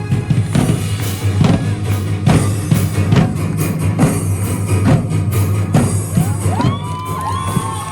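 Loud drum-driven music: many fast drum and percussion strokes over a steady low bass. Near the end, high tones that rise and bend join in.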